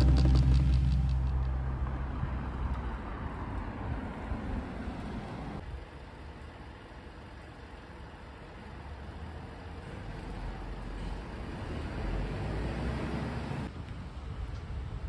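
Outdoor city ambience: a steady hum of road traffic in the distance, without speech. A held musical chord fades out in the first second or two, and the background changes abruptly twice, about six seconds in and near the end.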